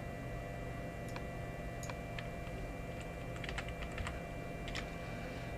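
Faint, irregular keystrokes on a computer keyboard, a size value being typed in, over a steady background hum.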